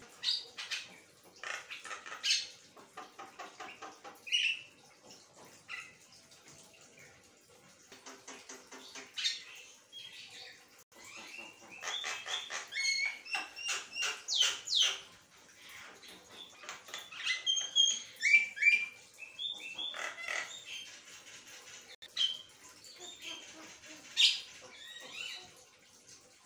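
Javan myna (jalak kebo) singing and chattering with hardly a pause: rapid runs of clicking notes mixed with short whistles and sweeping calls.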